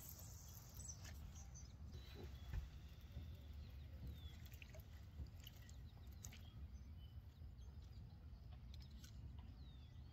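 Near silence outdoors on the water: a faint low rumble, with a few scattered faint ticks and short high chirps.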